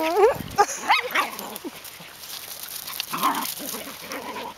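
Bichon puppies yipping and barking: a few short, high yips in the first second or so, and another bark about three seconds in.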